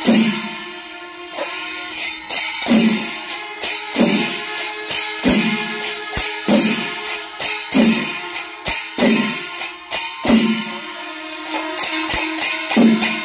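Kerala temple melam: chenda drums and ilathalam brass hand cymbals playing together. Deep drum strokes land about once a second under a fast, continuous clash of cymbals and stick beats.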